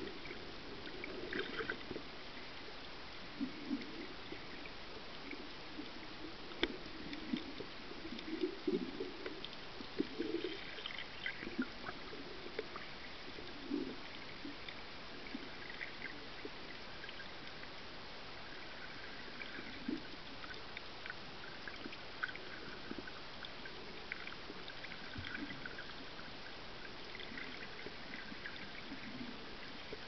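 Underwater sound of shallow, surging seawater picked up by a submerged camera: a steady hiss with irregular gurgles and bubbling and a few sharp clicks.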